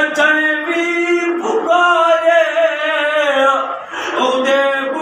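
A man singing devotional verse unaccompanied, holding long wavering notes with a couple of short pauses.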